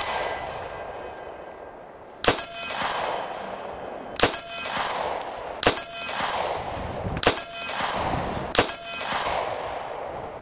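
Ingram MAC-10 9mm submachine gun fired unsuppressed in semi-automatic, single shots about every one and a half to two seconds, six in all. Each shot is followed by a long ringing tail.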